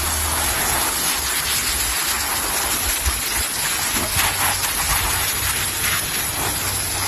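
Garden hose jet spraying water onto a dog and the grass, a steady hiss with a low steady hum underneath.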